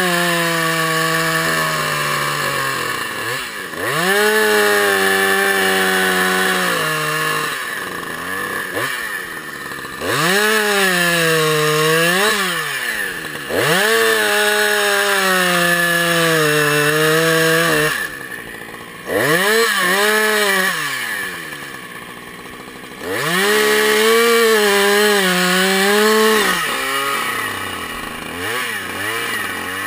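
Two-stroke chainsaw repeatedly revved to full throttle and cutting down through an upright log round, its pitch sagging and wavering as the chain bites into the wood. Between cuts it drops back to idle, about six cuts in all.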